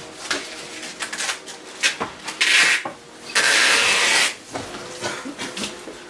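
Palette knife scraping and spreading oil paint on canvas: a run of short strokes, with two longer, louder scrapes in the middle, the second lasting about a second.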